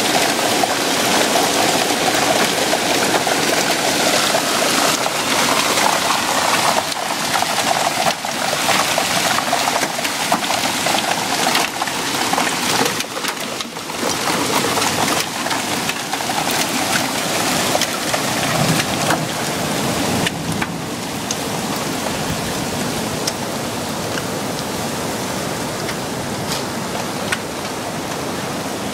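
A heavy hailstorm with rain: a dense hiss of falling precipitation, broken by many sharp ticks of hailstones striking the ground and a car. It is loudest and most uneven for the first twenty seconds, then eases into a steadier hiss.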